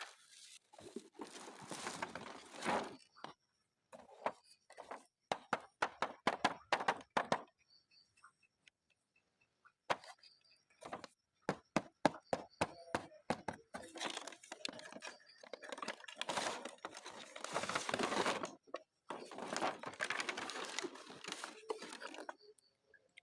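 Toy packaging being opened by hand: plastic and cardboard crinkling and tearing in long rustling stretches, broken by quick runs of sharp snaps and clicks.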